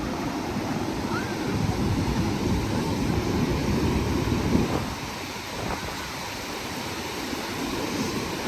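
Ocean surf washing onto the beach, a steady rushing noise, easing off a little about five seconds in, with wind on the phone's microphone.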